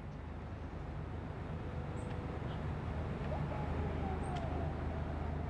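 Outdoor background noise: a steady low rumble, with a few faint higher calls or voices in the middle.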